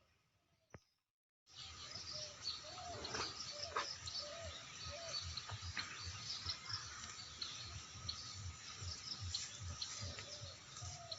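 After about a second and a half of near silence, a dense chorus of birds calling and chirping starts. It runs over a steady insect drone and background noise, with many short, repeated rising-and-falling calls.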